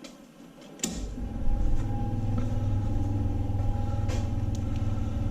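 Shop air compressor kicking on after a click about a second in, then its motor running with a steady low hum.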